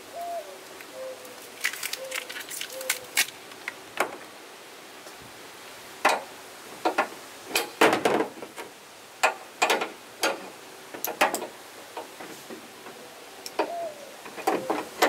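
Metal spring snap links clicking and clattering as they are hooked onto the tie-down eye rings in a pickup truck bed. The sharp clicks and knocks come irregularly, loudest in the middle.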